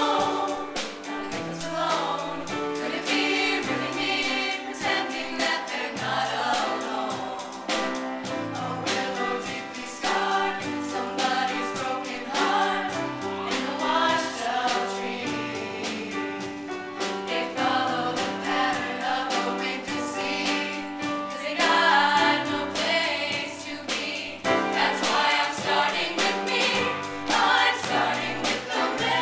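Show choir of mixed voices singing in harmony over instrumental accompaniment with a steady beat.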